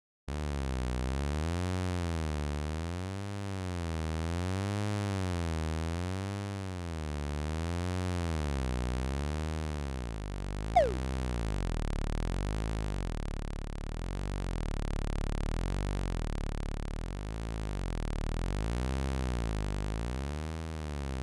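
Steady synthesized electronic drone, its pitch slowly wavering up and down, with one short falling chirp about halfway through.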